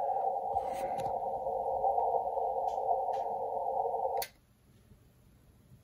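HF transceiver's receiver hiss from its speaker on the 40-metre band, a steady narrow band of rushing noise shaped by the 500 Hz CW filter, with a few faint clicks as the radio is tuned down the band. About four seconds in, a click and the noise cuts off suddenly as the rig switches to transmit for an SWR check.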